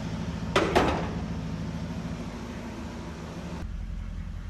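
1976 Cadillac Eldorado's 500 cubic-inch V8 idling steadily, with two sharp knocks just under a second in. A steady hiss over the engine cuts off suddenly about three and a half seconds in.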